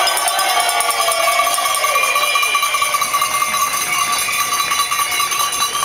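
Cowbells being shaken hard in a continuous clanging din. This is the noise-making that answers each verse of a Bavarian Haberfeldtreiben. The ringing fades out near the end.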